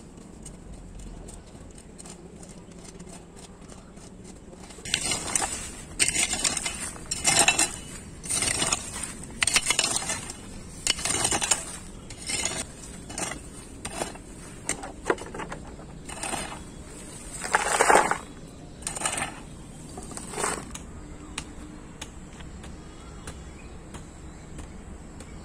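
Hand tool scraping dry fallen leaves and small stones across hard, dry soil in a run of strokes about one a second, starting a few seconds in and stopping near the end.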